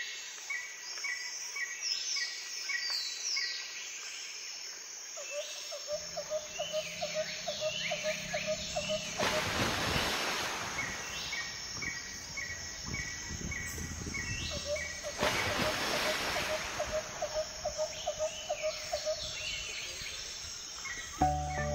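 Several birds calling over one another, among them a short call repeated in quick runs and a lower chirping series, over a steady insect drone. Two rushes of noise come about nine and fifteen seconds in, each lasting a second or two.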